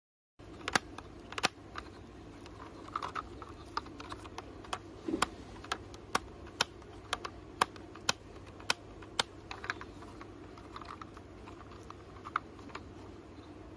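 Hard plastic toy car handled in the hands: sharp, irregular clicks and taps as its plastic doors and body are worked, over a low steady hum.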